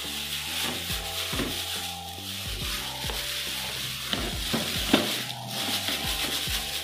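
Thin plastic carrier bag crinkling and rustling as a hard plastic toy is pushed into it, with a few light knocks and a sharper one about five seconds in, over background music.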